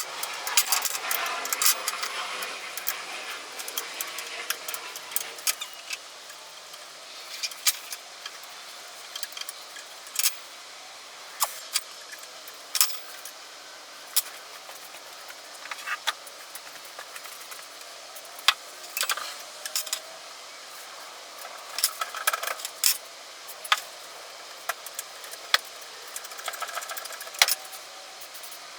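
Metal parts and hand tools clinking and rattling as an old cast-iron post drill is taken apart. Sharp irregular clicks and clanks come every second or two, a few of them ringing briefly, over a low steady background.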